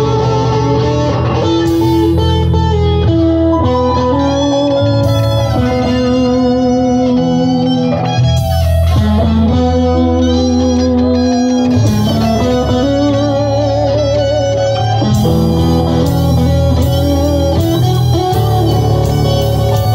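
Electric guitar lead played live with a band: sustained, bent notes with wide vibrato over held bass notes.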